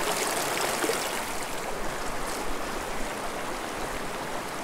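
Small mountain creek flowing, a steady rush of running water.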